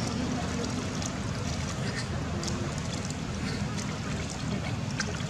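Water splashing and dripping in a plastic basin as it is scooped by hand over a baby monkey, with small scattered drips and splashes over a steady low rumble.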